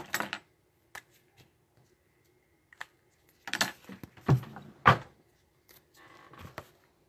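Handling noises: short rustles and clicks, with two sharp knocks about four and five seconds in.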